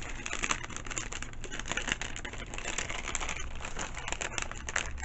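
Paper and plastic craft items being handled: continuous crinkling with many small clicks and taps.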